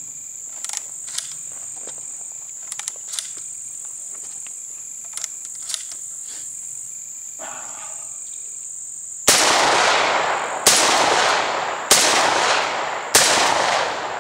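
Derya MK-10 semi-automatic 12-gauge shotgun fired four times about a second and a quarter apart, 3-inch magnum shells, each shot sharp with a long echoing tail, starting about nine seconds in. Before that, light metallic clicks of shells being loaded and the action being worked. A steady high insect drone runs underneath.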